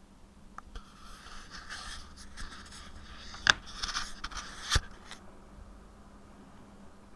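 Scraping and rustling for about four seconds, with two sharp clicks partway through.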